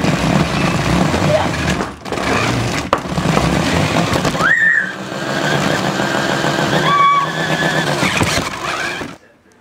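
Toy remote-control car's small electric motor whirring as it drives, a steady buzzy running sound that cuts off suddenly near the end.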